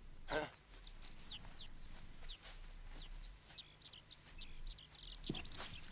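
Faint birds chirping, with many short falling chirps scattered throughout. There is a soft knock about a third of a second in and a few low thuds near the end.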